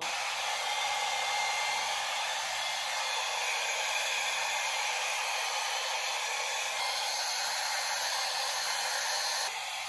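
Handheld electric hair dryer blowing steadily, an even rushing hiss, as it dries a wet cat's fur after a bath. The sound drops a little in level just before the end.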